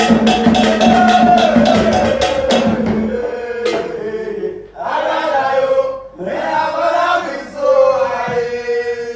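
Fast hand-drum rhythm, about five strokes a second, with a chanted vocal line. The drumming stops about three seconds in, and a lone voice chants on in separate phrases.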